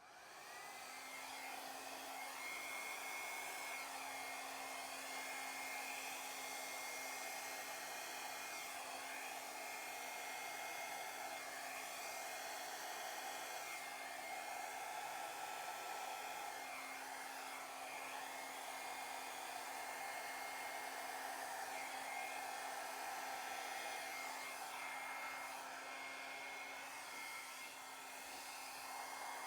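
A hairdryer switches on and runs steadily with a faint whine, blowing thinned acrylic paint across a canvas in a Dutch pour.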